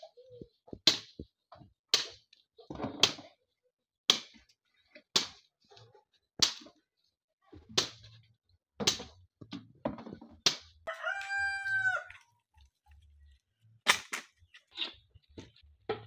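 Sharp wooden cracks and knocks, about one a second, as dry firewood sticks are struck and broken with a long wooden pole. A rooster crows once, about eleven seconds in.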